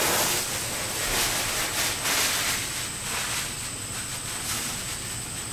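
Paper towel rustling as it is rubbed over the top of a pump casing, in irregular scrunches that are loudest in the first half.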